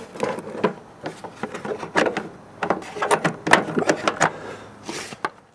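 A snowblower's plastic pulley cover being worked loose and pulled off: irregular knocks, clacks and rattles in clusters, with a short scrape near the end.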